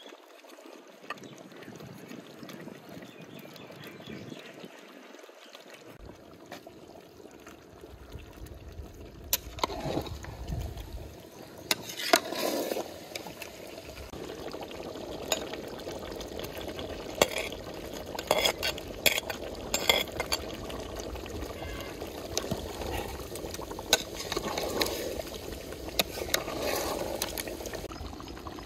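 Chicken bubbling in liquid in a large aluminium pot. From about ten seconds in, a metal ladle stirs it, with sharp clinks against the pot's side now and then.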